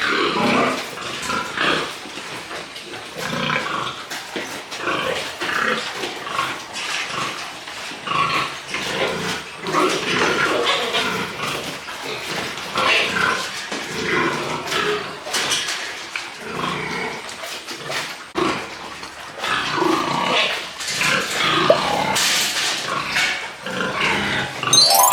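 Several pigs vocalising, with irregular overlapping calls throughout.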